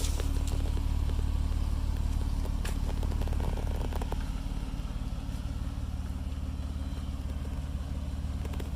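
2008 Jeep Wrangler's 3.8-litre V6 idling steadily, with a few faint clicks; the idle eases off slightly about four seconds in.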